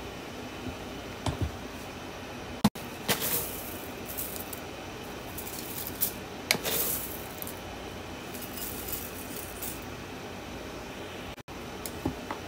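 A spoon clinks and taps against a glass bowl as thick berry smoothie is spooned in. Then crushed cornflakes are sprinkled in by hand with short, dry crackly rustles, over a steady background hiss.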